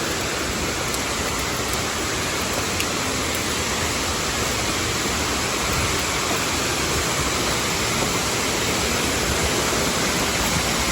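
Waterfall rushing: a steady, even roar of falling water, growing slightly louder over the stretch.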